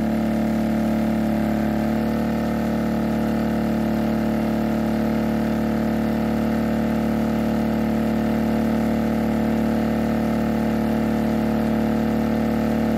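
Heomaito HMT3500iD inverter generator running steadily at high engine speed, with eco mode off, under a heavy load of about 3,000 watts. It makes an even hum with a strong low tone.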